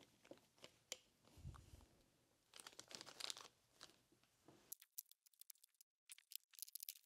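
Near silence with faint, scattered clicks and light rustling as small steel tools and parts are handled on a workbench.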